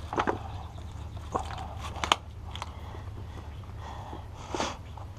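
Crinkling and crackling of a foil-backed Dynamat Extreme sound-deadening sheet being handled and pressed down, with scattered sharp clicks, over a steady low hum.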